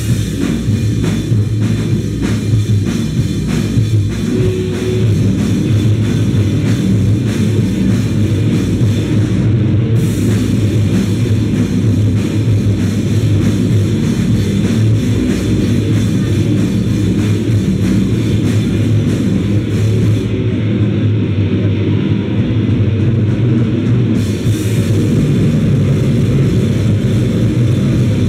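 A heavy band playing live and loud: distorted guitar over a pounding drum kit, a dense wall of low-pitched noise.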